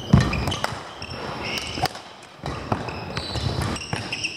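Badminton rally on an indoor court: sharp racket hits on the shuttlecock, footfalls and short high shoe squeaks on the court floor, with a loud thud just after the start.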